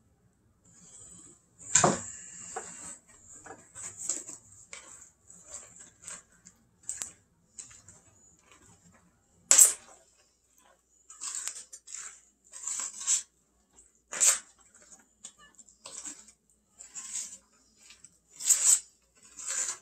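A spoon stirring thick, stiffening bread dough in a mixing bowl: irregular scrapes and knocks against the bowl. The sharpest knocks come about 2, 9.5, 14 and 18.5 seconds in.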